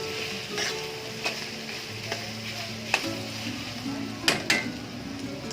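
Pork belly pieces sizzling in hot oil in a pan as they render their fat, with a few sharp clinks of a spatula stirring against the pan.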